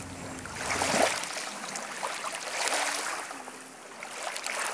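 Small waves lapping and washing on a pebbly shoreline, swelling and fading every second or two, with faint voices in the background.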